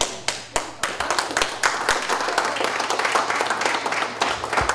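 Audience clapping: a few separate claps at first, then many hands joining in steady applause from about a second in.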